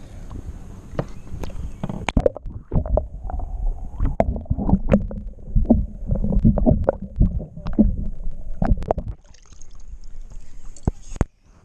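Lake water heard with the microphone dunked underwater: dull gurgling, sloshing and knocks, muffled with no high end, as a bluegill is lowered into the water and released. Near the end the sound comes back up into open air, with wind and lapping water.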